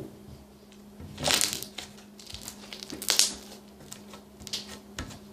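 Slime squeezed and pressed by hand to make it pop and crackle, with two louder bursts about one and three seconds in and a few smaller pops near the end.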